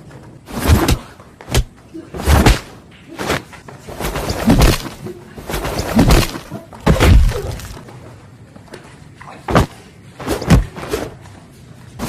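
Added fight sound effects: a string of sharp punch and kick impacts, some with a heavy low thud, with whooshing swings between them, coming in quick clusters every second or two.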